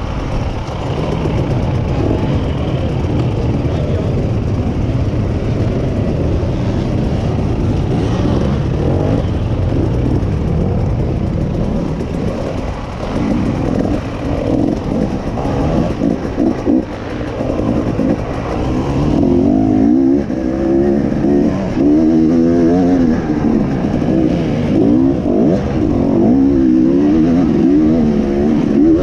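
Enduro dirt bike engine heard from on board, revving up and down as the rider accelerates and shifts along a dirt track. Through the second half the pitch rises and falls repeatedly with each burst of throttle.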